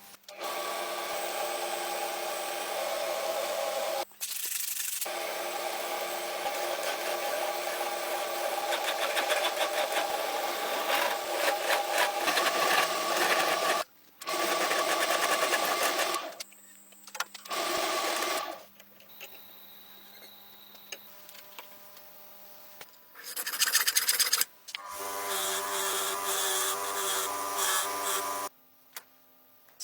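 Workshop tool sounds in a run of short clips joined by abrupt cuts: a small electric tool running with a steady hum while scraping or sanding metal, with rubbing and filing noises between.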